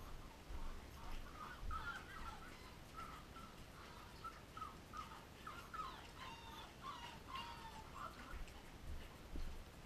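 Young puppies whimpering and squeaking: a run of short, high-pitched whines, several overlapping and busiest in the second half, with a few soft low bumps.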